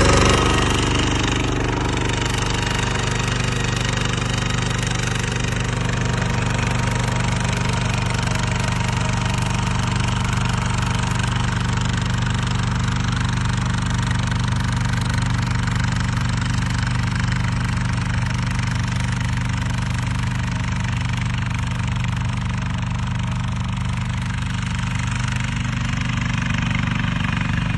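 Kubota power tiller's engine running steadily at an even speed, with a fast, even low thudding beat.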